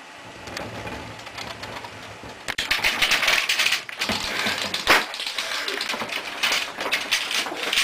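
Staged earthquake: objects rattling and clattering in quick, irregular knocks over a low rumble, growing much louder about two and a half seconds in.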